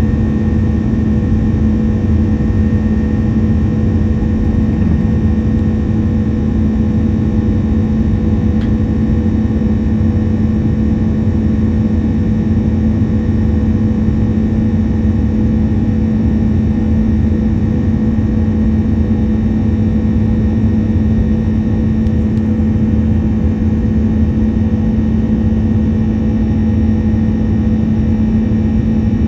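Airbus A330-300's jet engines at climb power just after takeoff, heard from inside the cabin beside the wing: a loud, steady roar with a steady low hum running through it.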